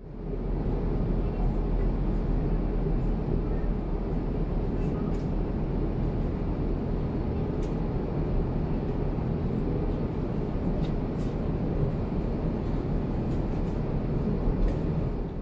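Steady low rumble inside the cabin of an Airbus A350-900 airliner: engine and airflow noise holding an even level, with a few faint ticks.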